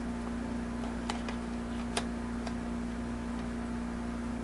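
A few light clicks and taps of small items being handled, the sharpest about two seconds in, over a steady low electrical hum.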